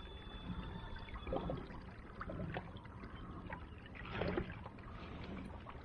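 Water splashing and trickling around a kayak, with a few short splashes or light knocks on the hull; the loudest comes about four seconds in.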